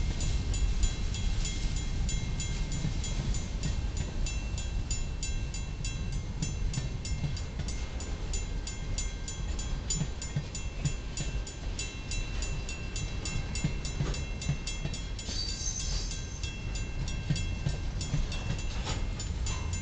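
Freight train of tank cars and covered hoppers rolling past: a steady low rumble of steel wheels on rail with light clatter, and a brief high-pitched squeal about fifteen seconds in.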